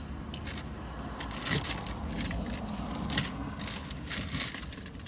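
Close-up chewing of a crisp-fried onion ring, with irregular crackly crunches, over a steady low rumble.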